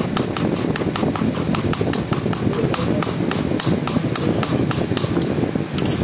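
Rapid, even hammer taps on a small iron piece, about five a second, stopping about five seconds in, over a low steady background rumble.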